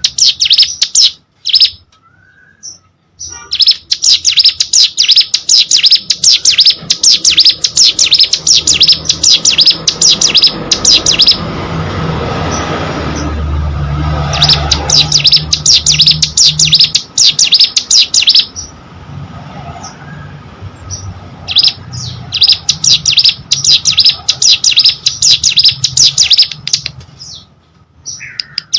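Ciblek gunung (hill prinia) singing in long runs of rapid, sharp, high-pitched repeated notes, in three spells with pauses between them. A low rumble swells during the pause in the middle.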